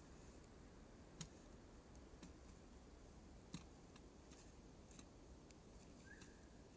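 Faint crackle of a wood campfire burning: a few sparse pops and ticks over near silence.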